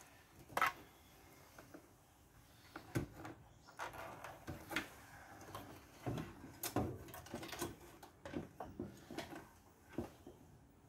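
Irregular light knocks and clicks as a motherboard is fitted into an open aluminium mining-rig frame by hand, with the board and its power cables bumping against the frame.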